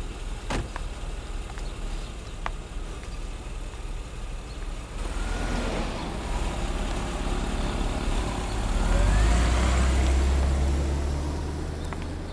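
A motor vehicle passing: a low engine rumble that builds, is loudest a little past the middle, then fades away. A few short clicks sound in the first seconds.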